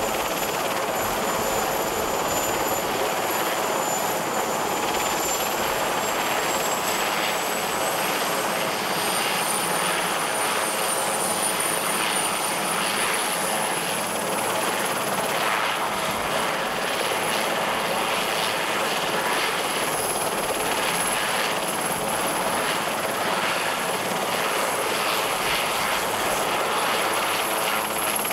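Marine One, a Sikorsky VH-3D Sea King helicopter, running on the ground with its turbines and rotor turning: a steady, loud noise under a thin high whine. The whine rises in pitch over the first half and then holds.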